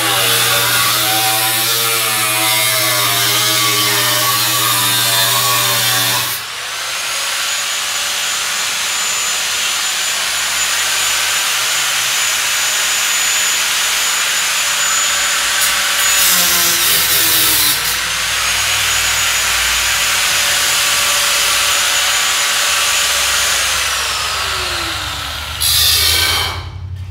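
Electric angle grinder with a cutoff wheel cutting through rusty cowl sheet metal, its whine wavering under load. After about six seconds it settles to a steadier high whine with a couple of brief harder bites into the metal. Near the end the pitch falls, then comes one short loud cut before it stops.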